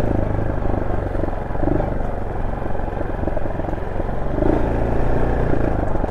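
Honda SL230's single-cylinder four-stroke engine running through an aftermarket muffler while the bike is ridden, with a steady engine note. The carburettor has been re-jetted for the new muffler, with a washer under the needle.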